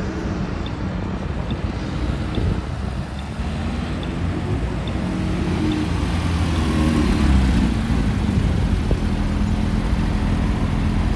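City street traffic, with car engines running and getting louder about halfway through.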